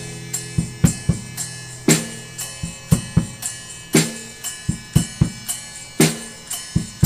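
Background music: a song's drum-kit beat of kick, snare and cymbals without vocals, with a stronger hit about every two seconds.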